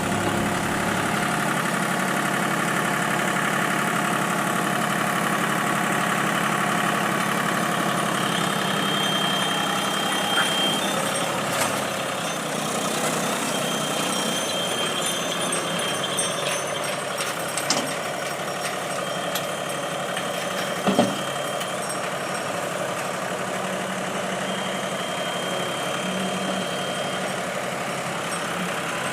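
Diesel engine of a JCB 3DX backhoe loader running steadily at work. A high steady tone sounds four times for about two seconds each, and a couple of short knocks come a little past the middle.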